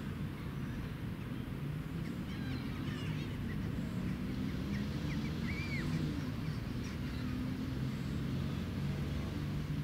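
Steady low hum and rumble, like distant engine noise, with faint high bird chirps and calls scattered through the middle few seconds.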